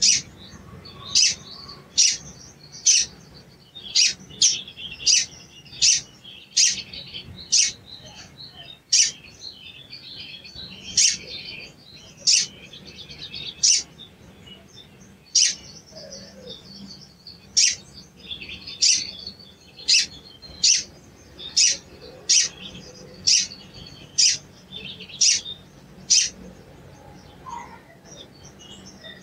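Male olive-backed sunbird calling: short, sharp, high 'cuit' notes about once a second, with softer twittering between them.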